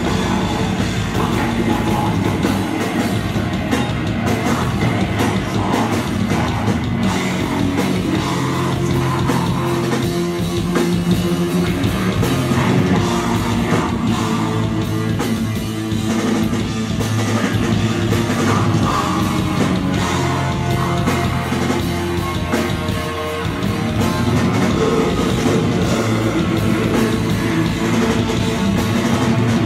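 Heavy metal band playing loud and live: a drum kit and distorted electric guitars going without a break.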